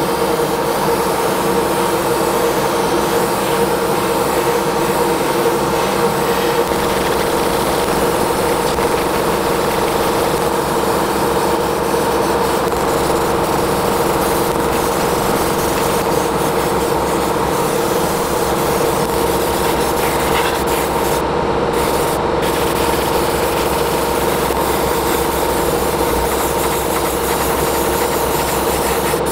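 Small electric motor running at a steady speed and pitch, with an abrasive rubbing noise over it, as of a rotary tool or sander working a surface.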